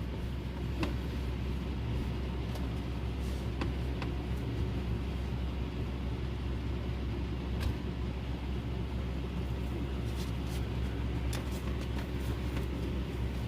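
A steady low mechanical hum, like an engine running, with a few faint clicks scattered through it.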